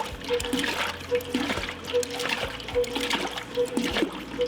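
Liquid splashing and trickling, with scattered clicks and a soft note that repeats about every eight-tenths of a second.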